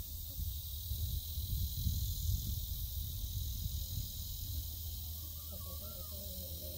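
Outdoor ambience: wind rumbling on the microphone over a steady high hiss. A faint wavering call comes in about five seconds in.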